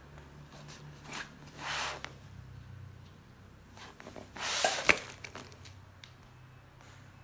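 Handling noises: two short rustles, then a louder rustle about four seconds in that ends in a sharp click, over a steady low hum.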